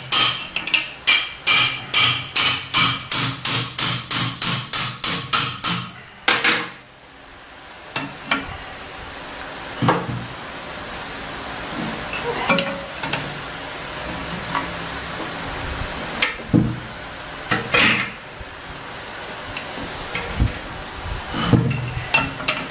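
A hammer tapping fast on a metal fitting and tool at a Toyota 2C diesel engine block, about three ringing blows a second, to work loose a water-pipe fitting that is soldered in rather than threaded. The tapping stops about six seconds in after one harder blow, and scattered single clanks of tools on the cast-iron block follow.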